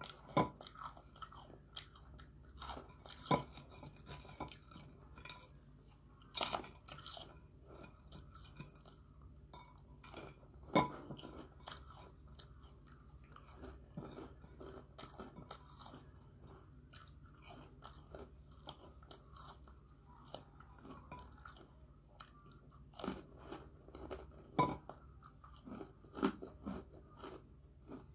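A person chewing crunchy puffed snacks close to the microphone: irregular crisp crunches and bites, a few much louder snaps among them, over a faint steady low hum.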